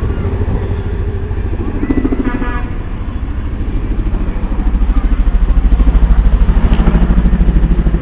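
CH-47 Chinook tandem-rotor helicopter flying over: a fast, even beat of rotor thumps that grows louder about five seconds in.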